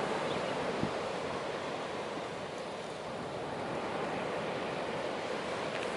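Ocean surf washing on the shore, a steady rushing that swells and eases slowly.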